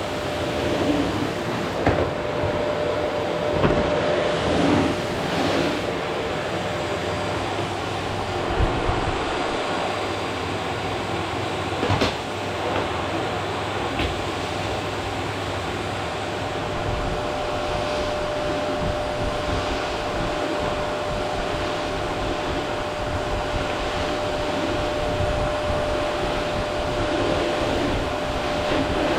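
Vacuum cleaner running steadily on a wooden floor, a constant rushing noise with one steady tone in it, and a few short knocks as the head is moved, most plainly about twelve seconds in.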